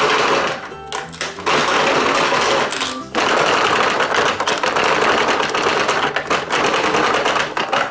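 Dry cornflake crumbs rattling and scraping in the plastic breading tray of a toy Chicken McNuggets maker as a nugget is worked through them. It is a dense crackling that comes in long spells, with a short break about three seconds in.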